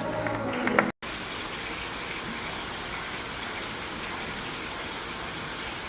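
Steady rush of running or falling water. It starts after a brief cut about a second in, replacing the tail end of music and applause.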